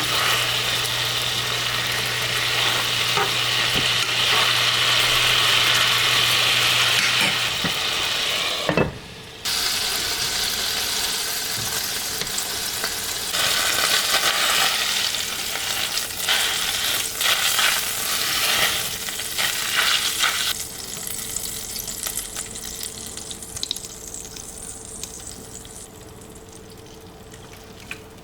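Hamburger steaks sizzling in a frying pan. The sizzle briefly cuts out about nine seconds in. It returns with clicks and scrapes of a utensil in the pan for several seconds, then grows fainter near the end.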